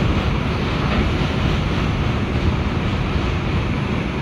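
New York City subway train running on elevated track: a steady rumble and rush of wheel and car noise, heard from aboard the train as it enters the station.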